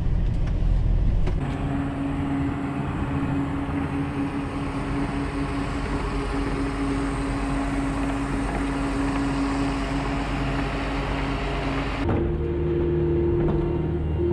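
Tractor-driven feed mixer wagon running and unloading feed off its side discharge conveyor, with a steady whine over the machine noise. About 12 seconds in it gives way to a different steady hum.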